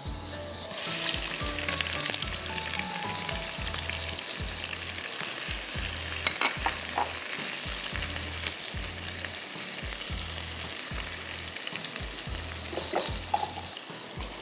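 Sliced raw onion and whole garam masala frying in hot oil in a karahi. The sizzle starts suddenly about a second in and runs on steadily while a spoon stirs, with a few light taps of the spoon on the pan.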